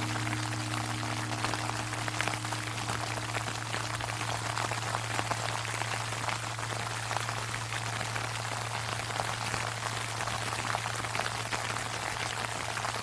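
Sleet pattering steadily on an umbrella, with the deep hum of a large Japanese temple bell dying away after a strike: its higher tones fade out within the first few seconds while the low hum lingers.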